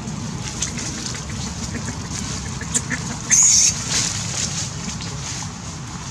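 A macaque gives one short, high-pitched scream about three seconds in, over a steady low rumble and faint scattered clicks.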